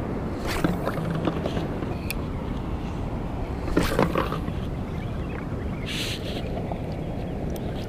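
Seawater sloshing and splashing close to the microphone over a steady low rumble. The louder splashes come about half a second in and again around four seconds, with a short hiss near six seconds.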